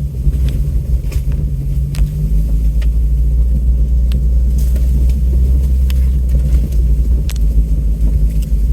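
Off-road vehicle crawling along a rough dirt road: a steady low engine and drivetrain rumble, with scattered sharp knocks and rattles from the bumpy ride.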